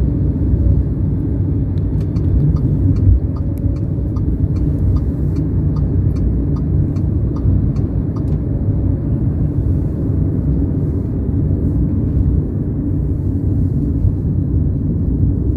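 Metro train running: a steady low rumble with faint scattered clicks.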